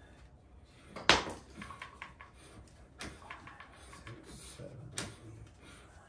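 Metal clanks and clicks of hand tools on a four-link suspension's lower link and its mounting bolt. The loudest clank comes about a second in, with more knocks near three and five seconds and smaller clicks between.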